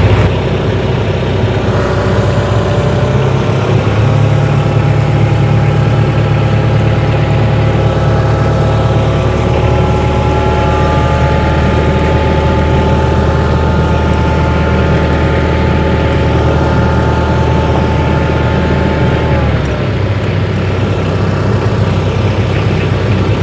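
Tractor engine running steadily while the tractor creeps forward to pull a snow chain onto a tyre, with a steady low rumble and a whine on top. Its note changes about twenty seconds in, and it cuts off suddenly at the end.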